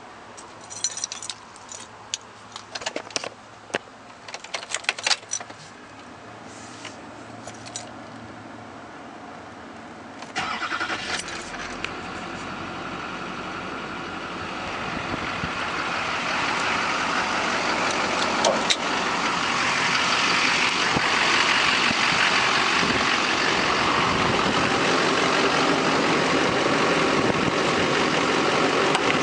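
Light clicks and key rattles, then the Duramax 6.6 L V8 turbo diesel cranks and starts about ten seconds in and settles into a steady idle, growing louder over the second half.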